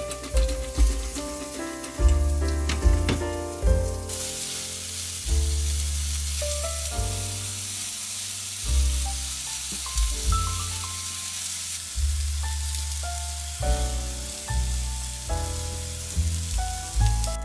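Mushroom slices sizzling in hot oil in a frying pan, the sizzle starting suddenly about four seconds in and strongest until about twelve seconds, over background music.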